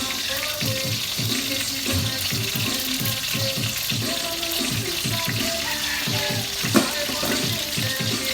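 Background music with a steady beat over a steady high hiss, with one sharp clink near the end.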